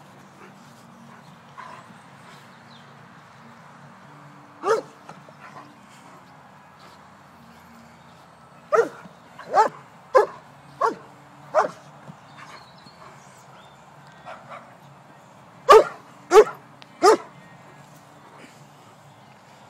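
White German Shepherd giving sharp, short play barks while chasing a ball: one bark about five seconds in, a run of five in quick succession, then three more near the end.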